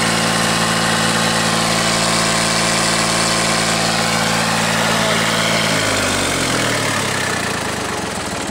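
Allis-Chalmers 5050's Fiat-built three-cylinder diesel engine running steadily at raised throttle, then throttled back about six seconds in, its pitch falling toward idle.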